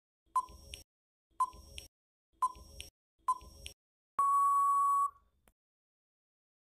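Quiz countdown timer sound effect: four short electronic ticks about a second apart, then a longer steady beep about four seconds in that marks time up.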